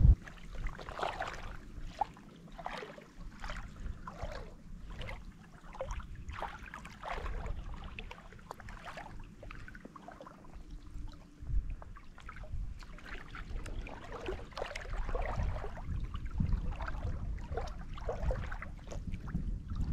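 Shallow river water splashing and gurgling in a riffle, in irregular splashes every second or so, with wind rumbling on the microphone at times.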